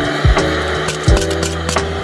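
Background music with a steady beat: deep thumps about every half second under held notes and sharp clicks.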